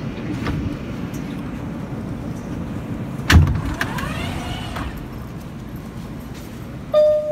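Steady low rumble of a 2005 R160A subway car rolling slowly into a station. About three seconds in comes one sharp bang, then a short whine that rises and falls as the train brakes. A steady tone begins near the end.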